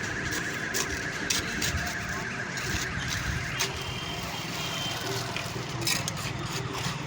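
Construction-site machinery running with a steady high-pitched squeal that stops about three and a half seconds in, over a dense din with scattered knocks and scrapes.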